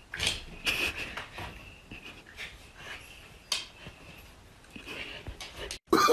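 A cat pawing and swatting at a large fluffy dog: scattered short scuffles and soft taps, with the dog panting.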